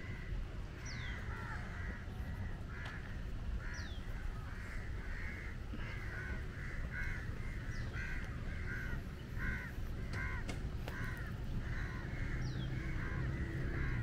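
Crows cawing in a long, near-continuous string of harsh calls, with a few short downward whistles from another bird over a low background rumble.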